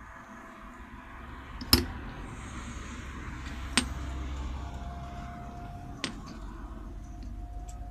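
Three sharp metal clinks about two seconds apart, the first the loudest, as the steel parts of a homemade welding third hand (ball joint, rod arm and drill chuck on a heavy steel disc base) knock together while it is repositioned by hand.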